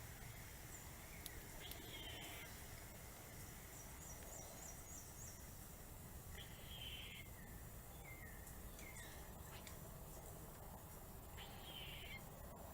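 Wild birds calling faintly over a steady low background noise. One call that ends in a falling note comes three times, about five seconds apart. A quick run of five high notes comes about four seconds in, and a few short falling chirps follow.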